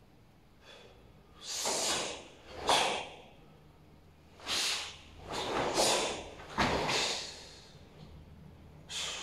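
A karateka's short, forceful hissing breaths and the swish of his gi as he strikes and steps through the closing moves of the kata Seisan: about eight brief bursts at uneven intervals, with near quiet between.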